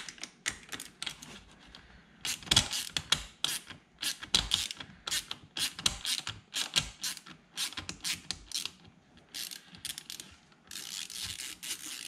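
Small hand ratchet clicking as it backs out a seat belt anchor bolt, in short uneven runs of clicks. Near the end the clicks run together into a quicker, continuous rasp.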